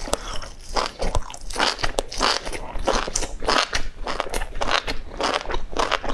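Close-miked eating of spicy enoki mushroom strands: slurping them in and chewing, a quick irregular run of wet sucking and crunchy chewing noises, several a second.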